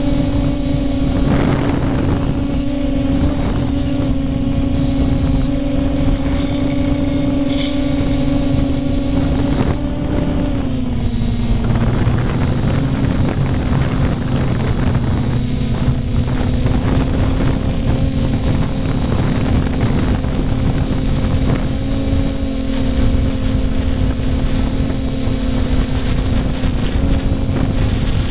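Small multirotor drone's electric motors and propellers humming steadily, with wind rushing on the microphone; the pitch drops slightly about ten seconds in as the motors ease off, then holds.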